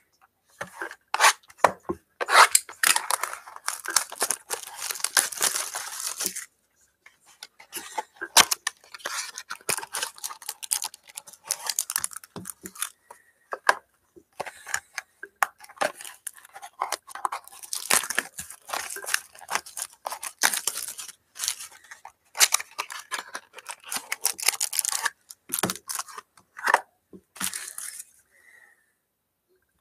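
Plastic wrapping on trading card boxes and packs being torn open and crinkled, in repeated bursts of crackling tearing with short pauses between them.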